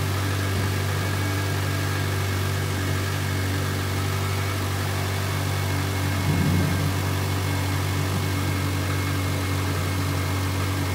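Car engine idling steadily just after a jump start from a separate battery, the jumper cables still connected because the car's own battery is weak. A brief louder low sound about halfway through.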